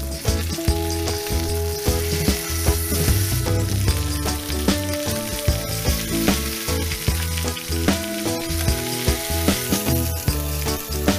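Pork belly pieces sizzling and spitting as they sear over high heat in a dry frying pan, with metal tongs clicking and scraping against the pan as the pieces are turned onto their sides.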